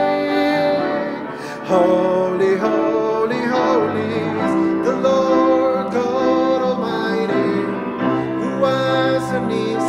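A man singing a slow worship song, accompanying himself on a grand piano with sustained chords. The music dips briefly about a second and a half in before the singing picks up again.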